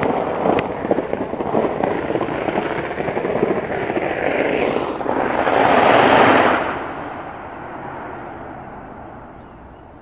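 A dense, continuous crackle of rapid pops from an unseen source, swelling into a loud rushing hiss about six seconds in and then fading away. The hiker guesses it may be firecrackers being set off, though she doubts it is fireworks.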